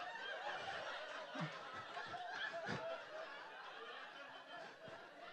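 Faint, scattered chuckling and soft laughter from a comedy-club audience.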